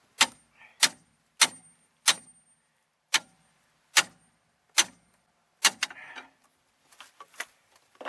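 Eight hard metal-on-metal hammer blows, each with a brief high ring, followed by lighter clattering of metal parts near the end.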